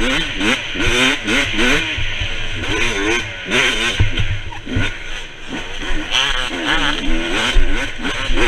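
Motocross dirt bike engine at race pace, revving hard and falling back over and over, its pitch rising and dropping every second or so, heard from a camera mounted on the bike.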